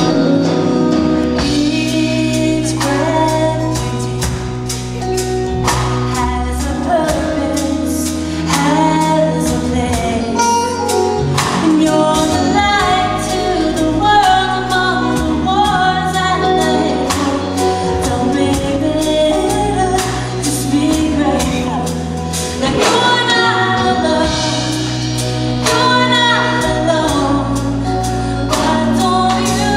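Live band playing a song: a woman sings lead over acoustic guitar, electric guitar and drums, with backing vocals joining in.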